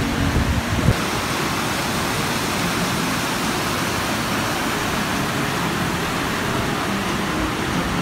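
River water rushing over rocks in white rapids and a small cascade, a steady, even rush. A few low bumps near the start.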